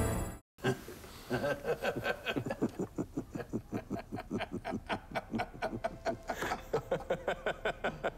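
A man laughing heartily and at length, an even run of 'ha' pulses about five a second. It starts just after a burst of music cuts off in the first half second.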